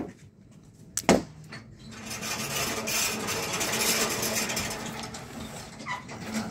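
Hyundai HD72 truck's diesel engine idling, heard close to its tailpipe: a steady low hum under exhaust hiss that swells and then eases a little. A sharp click about a second in.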